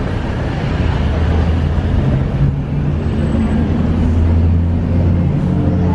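Street traffic: a steady low engine hum from motor vehicles, growing somewhat stronger past the middle, over general road noise.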